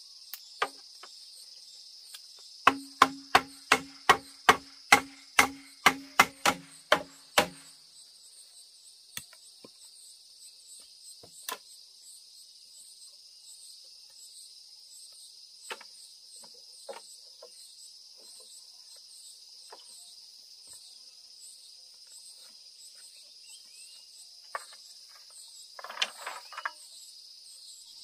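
Steady drone of insects throughout. A few seconds in comes a run of about fourteen sharp knocks, about three a second, each with a low ringing tone, like blows of a hand tool on wood or bamboo; a few scattered single knocks and clicks follow later.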